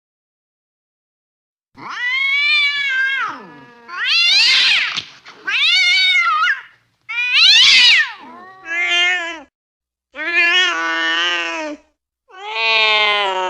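Domestic cat yowling angrily: about seven drawn-out calls that bend up and down in pitch, each about a second long with short pauses between, beginning about two seconds in, the last one running on.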